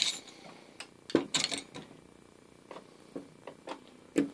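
Screwdrivers and small hand tools being set down one at a time in a carpet-lined steel tool-chest drawer: scattered knocks and clacks of handles and shafts, with a quick cluster about a second in and a sharper one near the end.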